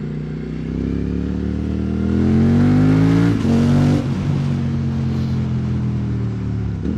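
QJ Motor SVT650X parallel-twin engine through an Arrow Racetech slip-on exhaust, pulling hard under throttle: its note rises for about three seconds, steps down twice as it shifts up, then runs steadily at cruise.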